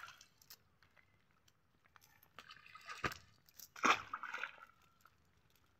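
Wet, freshly netted rohu and a cast net rustling and slapping on dry grass. A few scattered crunches start about halfway through, then one sharp slap about three seconds in and a short rustling flurry about a second later.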